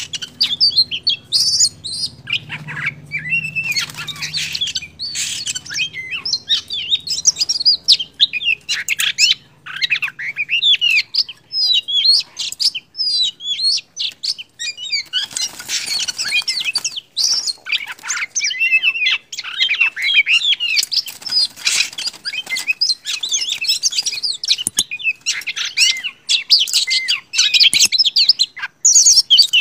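Wild-caught oriental magpie-robin (kacer) singing a long, varied song of rapid whistles and chirps, broken only by short pauses.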